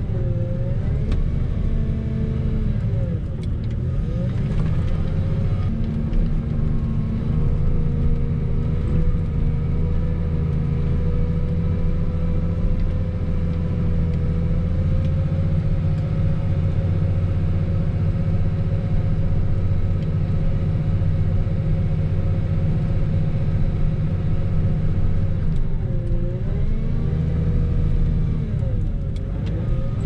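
Wheel loader's diesel engine running steadily under load while plowing snow. Its speed dips and comes back up twice a few seconds in, and twice more near the end.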